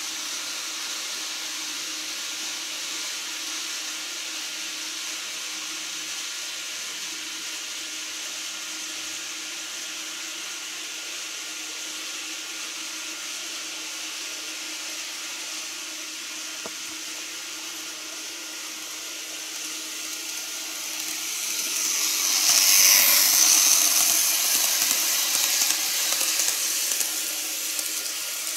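Steady hiss with a faint hum. About two-thirds in, a Micro Ace N-gauge Keikyu model electric train runs past close by: its motor and wheels on the track make a rising whirring rush that is loudest as it passes, then eases off near the end.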